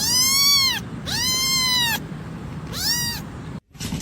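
Domestic cat meowing three times: two long, loud meows and a shorter third, each rising and then falling in pitch. The sound cuts off abruptly near the end.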